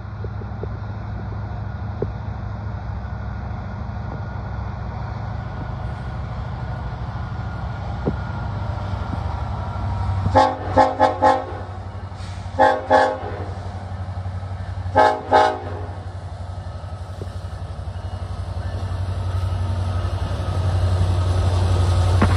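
Diesel locomotive of a Norfolk Southern intermodal train, an EMD SD70ACe, approaching with a steady low engine rumble that grows louder near the end as it draws alongside. Around the middle its air horn sounds a string of short blasts in three bunches: four quick toots, then two, then two.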